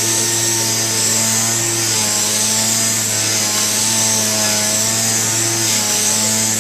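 Air-powered mini sander running steadily on a polycarbonate headlight lens, sanding it with an 800-grit disc on an interface pad to refine the surface after the coating has been removed. It makes a steady whine over a high hiss.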